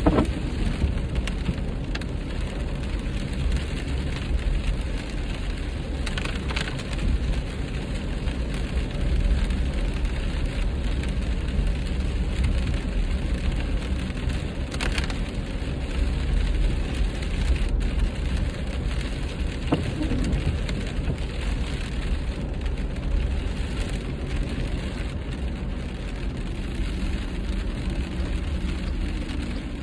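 Steady road and tyre noise inside a car's cabin at highway speed, with rain spattering on the windshield over a low rumble.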